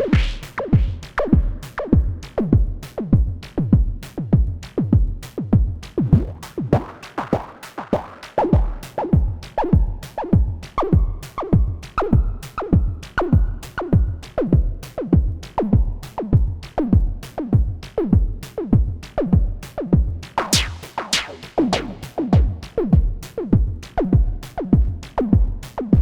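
Moog DFAM analog drum synthesizer playing a repeating sequenced beat, about two to three hits a second. Each hit is a click with a tone that slides down in pitch, from a patch with pitch routed to noise level through the high-pass filter. The hits turn brighter and noisier about twenty seconds in.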